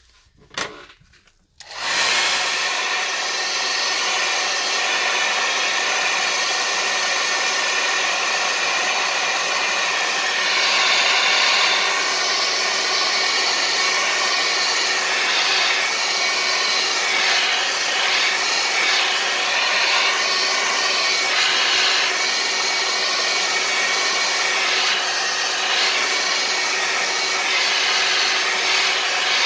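Hair dryer switched on about two seconds in, then running steadily as it blows hot air onto a tablet's touchscreen digitizer to loosen it for removal.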